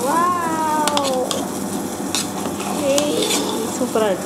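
A metal ladle stirring and mashing freshly pressure-cooked rice and moong dal in an aluminium pressure cooker, with short scraping clicks against the pot. A brief voice-like tone falls in pitch during the first second.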